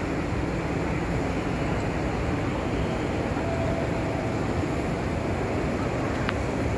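Steady ambient noise of a large railway station concourse: an even rumble and hiss with no distinct events, apart from a faint brief tone about halfway through and a small click near the end.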